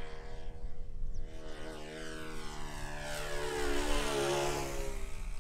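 Radio-controlled aerobatic model airplane's motor and propeller as the plane flies past, growing louder up to about four seconds in, where the pitch drops as it passes, then fading.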